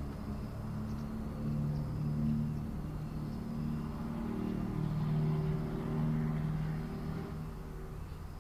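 A motor vehicle's engine running close by, its low hum rising and falling a little in pitch and loudest about two-thirds of the way in.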